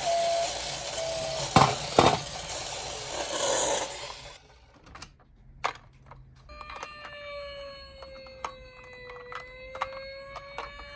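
Toy minicar siren: a two-tone electronic siren stops within the first second. After a few seconds of hiss and small knocks, a slow wailing siren tone starts about six seconds in, dipping and rising again, with plastic clicks and taps throughout.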